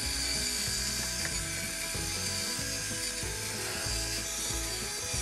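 Handheld rotary tool running steadily, its small bit grinding into a wooden drawer front to widen the drawer-pull holes. Music plays underneath.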